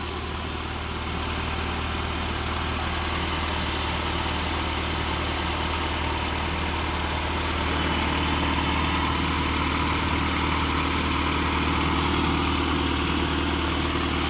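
1995 Rover Mini Mayfair's 1275 cc A-series four-cylinder engine idling steadily, heard from over the open engine bay, a little louder from about halfway through. It runs smoothly, as a healthy 4,000-mile engine should.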